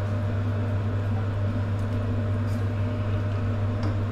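A steady low electrical hum, with a couple of faint light taps from a wooden spatula working food in a stainless steel pot of stew.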